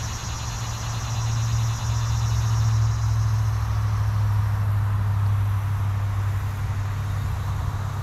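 Low, steady engine rumble, like a vehicle running nearby, swelling about a second in and then holding. Insects chirr high above it until about halfway through.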